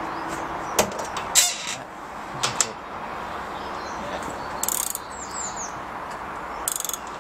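Tool working the washing machine's motor pulley nut: scattered sharp metal clicks and short bursts of rapid ratchet-like clicking, with a quick run of ticks near the end. The nut keeps spinning instead of tightening because a washer was left off.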